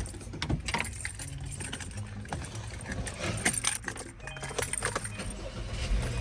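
Scattered small clicks and metallic jingles of objects being handled, like keys, over a low steady rumble.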